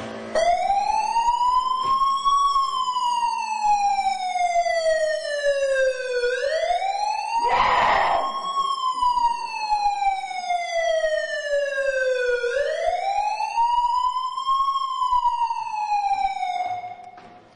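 Siren wailing slowly: the pitch rises for about two seconds and falls for about four, three times over, then cuts off near the end. A short burst of noise comes about halfway through.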